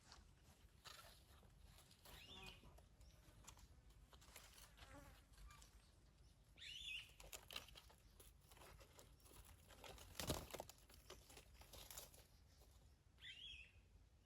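Near silence with soft rustling and three faint, short high chirps spread through it.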